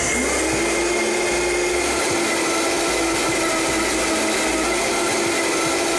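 Countertop blender motor spinning up and then running at a steady whine, blending egg yolks, mustard, vinegar, water and salt into a mayonnaise base.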